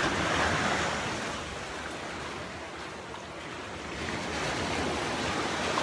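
Small ocean surf breaking and washing up a sand beach, the rush of water easing off for a couple of seconds in the middle, then building again as the next wave comes in.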